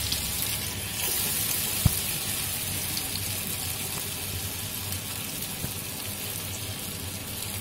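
Soybean and raw-banana koftas deep-frying in hot oil in a kadai: a steady sizzle, with a single sharp click about two seconds in.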